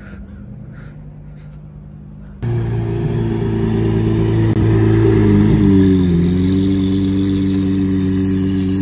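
Car engine running loudly close by: a steady low drone that starts abruptly about two seconds in, after a quieter stretch of faint low hum, and dips briefly in pitch around the middle before settling again.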